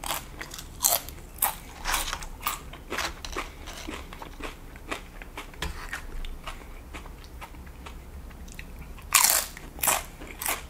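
Close-up crunching and chewing of crisp tortilla chips under cheese sauce: a quick run of sharp crunches over the first few seconds, fewer in the middle, then a loud crunch of a fresh bite about nine seconds in.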